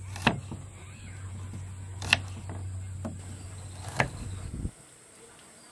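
A kitchen knife slicing a red shallot on a wooden cutting board: four sharp taps of the blade against the board about a second apart, over a low steady hum that stops suddenly near the end.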